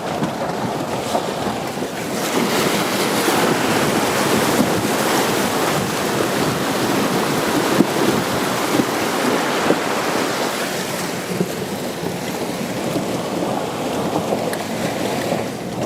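Rushing, splashing water as a 4x4 towing a caravan wades through a river crossing, louder for several seconds and then easing, with wind noise on the microphone.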